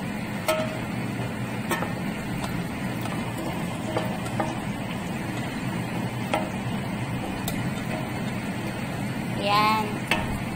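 A utensil stirring rice in a stainless steel pot, scraping and clicking against the metal now and then, over a cooking sizzle and a steady low hum.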